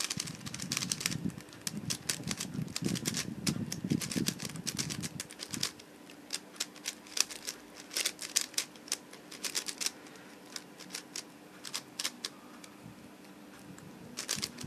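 X-Man Galaxy Megaminx, concave version, fresh out of the box, turned rapidly by hand: a fast run of plastic clicks and clacks from the turning faces. The clicks are densest in the first half, with rubbing of the pieces under the fingers, and come in sparser groups later.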